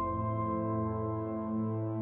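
Ambient new-age background music: one soft, held chord of sustained tones, with no beat.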